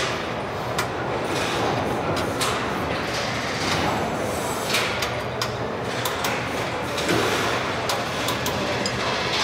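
Truck assembly-line noise: a steady machinery din and hiss with scattered metallic clanks and clicks from work on the chassis frames.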